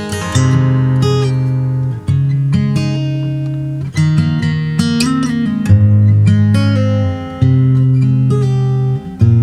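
Martin D-18V dreadnought acoustic guitar, mahogany back and sides with a spruce top, played as strummed chords with strong ringing bass notes. A new chord comes in about every two seconds.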